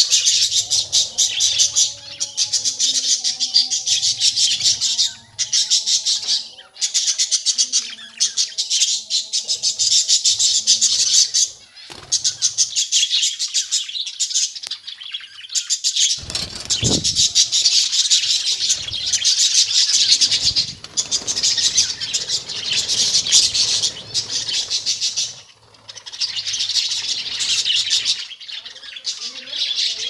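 A flock of budgerigars chirping and chattering continuously in a dense, high-pitched din with only brief breaks. There is a short low thump a little past halfway through.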